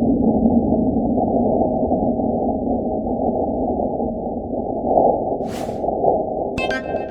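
Seismometer recording of a meteoroid impact on Mars from NASA's InSight lander, sped up into audible sound: a low, steady rumble that slowly fades. A short whoosh comes about five and a half seconds in, and a chime rings out near the end.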